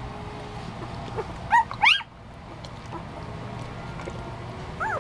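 Week-old poodle puppies squealing: two short, loud rising squeals about one and a half to two seconds in, and another near the end.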